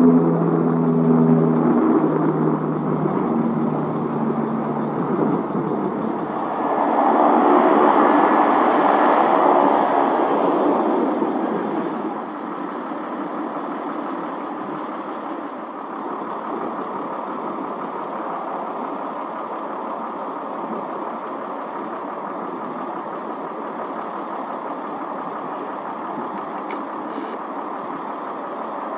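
Aircraft engines running: a steady rush with a thin high whine, swelling about seven seconds in and easing off around twelve seconds.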